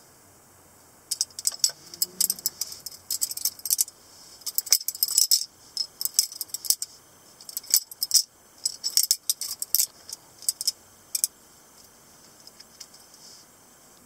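Butterfly knife (balisong) being flipped open and closed by hand: quick flurries of sharp metallic clicks and clacks as the metal handles and latch knock against each other and the blade tang. They begin about a second in and die away to a few faint ticks near the end.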